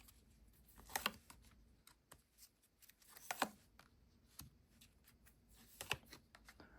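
Tarot cards being handled and laid down on a table: faint, scattered light clicks and taps, the clearest about a second in, near the middle and near the end.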